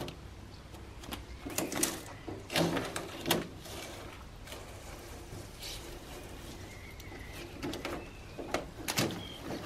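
Masking tape being peeled off painted car-bonnet metal by hand: irregular short rips and crinkles as strips pull away and the peeled tape is bunched up.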